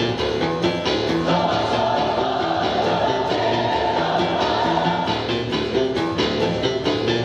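Music with a steady beat, with a held melody or voice through the middle.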